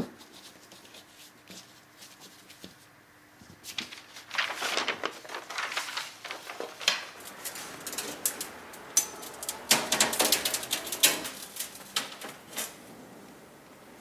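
Sheets of glass being handled in a storage rack, rattling and scraping in irregular bursts. They start about four seconds in and are loudest about ten seconds in.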